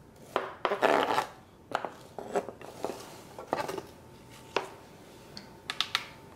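Knife scraping chopped onion off a plastic cutting board, the pieces dropping into a pan of oxtails in irregular bursts of scrapes and soft knocks that thin out to a few light clicks near the end.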